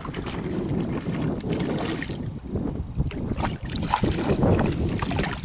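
Wind rumbling on the microphone over choppy lake water, with splashing as a hooked brown trout thrashes at the surface while being reeled in.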